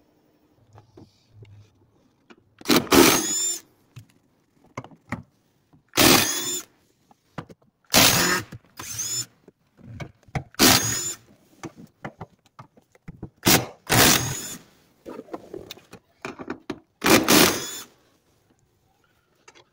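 Red cordless power tool on a socket spinning seat-rail mounting bolts loose, in about seven short bursts, each a second or less, that start with a rising whine. This is the seat being unbolted to reach the fuel sending unit under it.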